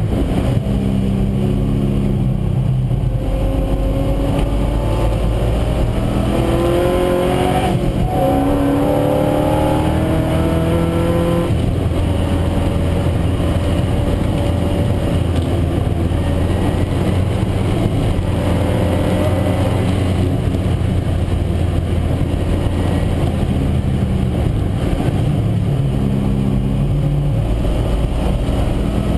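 Triumph TR7 V8 race car's V8 engine heard from inside the stripped cabin, revving hard through the gears: the pitch climbs and drops back at each upshift, holds a steady note for a long stretch, then climbs again near the end.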